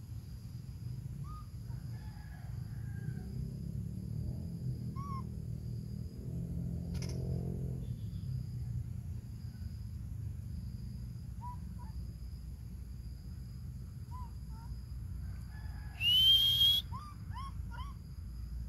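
Short, high chirping animal calls every few seconds, with one louder, rising squeal about sixteen seconds in, over a steady low rumble.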